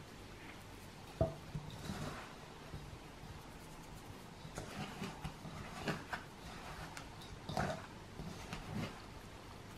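Hands rubbing butter into flour in a ceramic bowl for shortbread dough (the sablage stage), giving soft, irregular rustling and squishing with a sharp knock about a second in.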